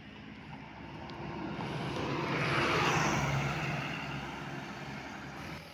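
Tour coach driving past at close range, its engine and tyre noise rising to a peak about halfway through and fading as it moves away.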